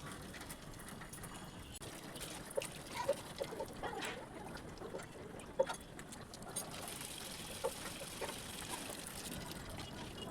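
Small birds giving short, scattered chirps, most of them in the first half, over a steady hiss that gets brighter a little past the middle.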